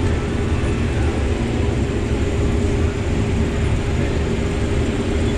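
Combine harvester running steadily while harvesting corn: a constant low rumble with a steady hum and the rushing noise of the machine working.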